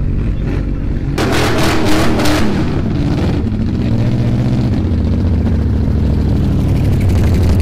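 Modified Mazda MX-5's engine revs with a rapid run of sharp pops from the exhaust about a second in, the revs then falling away. Then a lowered Toyota Hilux pickup's engine runs at a steady low rumble as it rolls slowly past.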